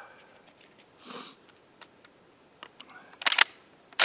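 Handling noise from a shooter settling prone behind a rifle: a soft breath about a second in, scattered small clicks, then two short bursts of rattling clicks, one a little after three seconds and one right at the end.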